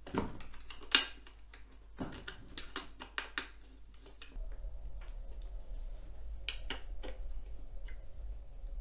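Clicks and knocks of hard plastic and metal parts and screws being handled as an office chair's backrest bracket is fitted to the seat by hand, the loudest knock about a second in and a quick cluster of clicks around the middle. A low steady hum sets in a little past four seconds.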